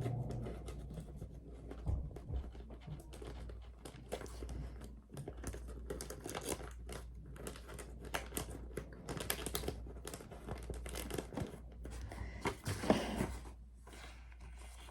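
Paper rustling and crinkling in quick irregular strokes as cash bills are folded and handled, with a louder flurry near the end.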